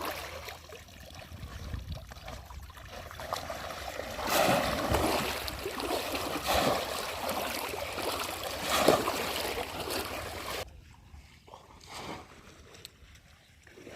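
Shallow water splashing and sloshing irregularly as people wade and plunge bamboo polo fish traps, busiest in the middle and dropping off sharply about three-quarters of the way through.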